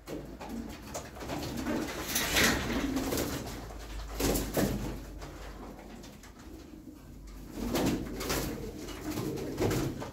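Domestic pigeons (Turkish play pigeons) cooing in a loft, with a few short noisy rustles among them.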